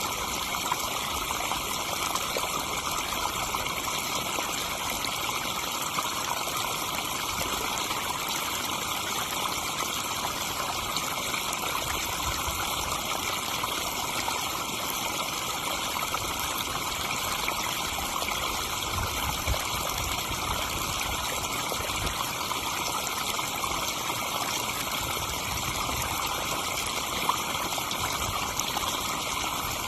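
Backyard pond waterfall: water splashing and trickling steadily into the pond.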